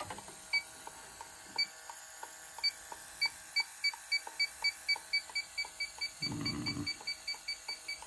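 Electronic refrigerant leak detector beeping, sparse at first, then speeding up about three seconds in to a quick run of three or four beeps a second as its probe picks up refrigerant at the evaporator coil: the sign of a leaking coil.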